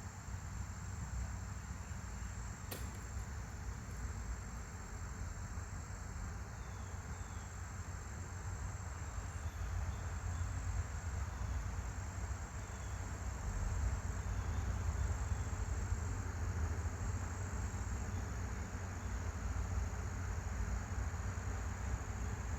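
Steady outdoor background: a low rumble with a thin, steady high whine over it, and one sharp click about three seconds in.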